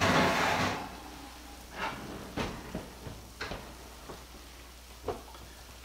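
Kitchen handling noises from oven mitts being pulled off: a brief fabric rustle in the first second, then five or six scattered light knocks and taps.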